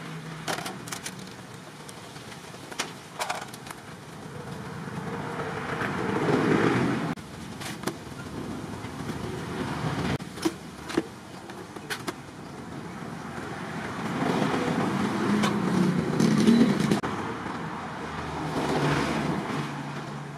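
Road traffic passing, a noise that swells and fades three times, with scattered sharp clicks and taps of small tools and parts being handled.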